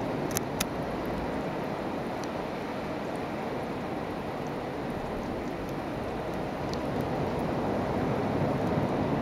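Steady rushing noise of sea surf and wind at the shore, with two sharp clicks about half a second in.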